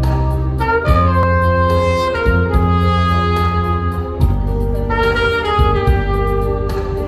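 Saxophone playing a trot melody in long held notes over an accompaniment of bass and a steady drum beat.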